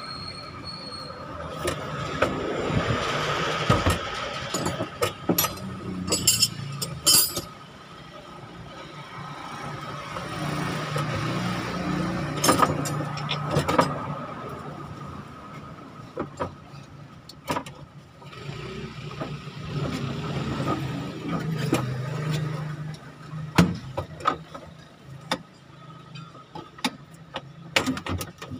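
Clicks and knocks of plastic and metal parts being handled and fastened as the evaporator and blower housing is fitted back under a dashboard. A low motor hum swells and fades three times behind them, and a faint steady high whine runs throughout.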